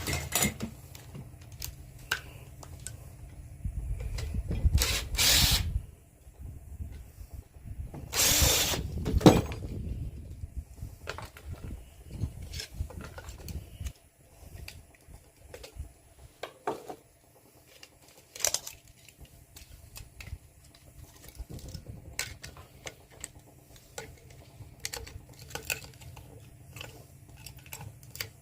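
Tools working apart an aluminum washing machine motor: scattered metal clicks and clanks, with two louder noisy stretches of about two seconds each, around 4 and 8 seconds in.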